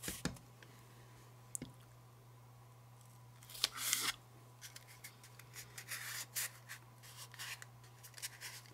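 Blue painter's tape being pressed and rubbed down by hand onto a model locomotive hood shell held on a metal fixture: soft rubbing and crinkling with small clicks. The loudest rustle comes about three and a half seconds in, and shorter rustles follow near the end.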